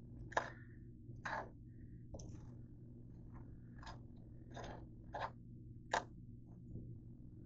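Table knife scraping peanut butter across crisp grilled sourdough toast in short strokes, about one a second, over a steady low hum.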